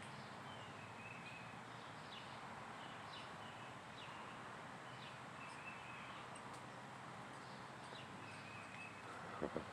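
Quiet outdoor ambience: a steady faint hiss with scattered short, high bird chirps.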